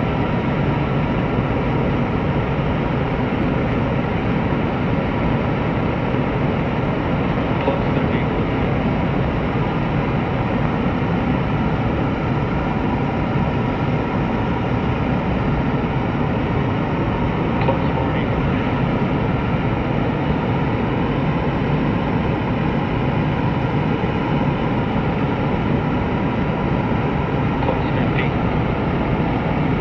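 Five-segment solid rocket booster for NASA's Space Launch System in a horizontal static test firing: a steady, dense noise from deep rumble up to hiss, holding an even level with no letup.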